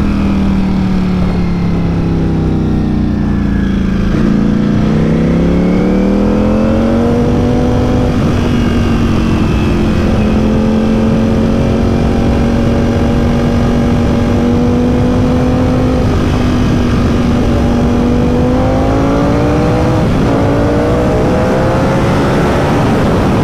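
Ducati Panigale V4 S's V4 engine under way at speed over wind rush. The revs sink over the first few seconds, climb as it accelerates and hold steady, then climb again, with a short break about twenty seconds in as it shifts up from third to fourth.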